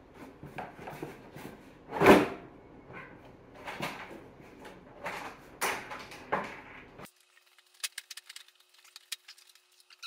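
Scattered knocks, clicks and rattles of hands handling parts around a snowmobile's dash and handlebars, with the loudest knock about two seconds in. After about seven seconds only faint light ticks remain.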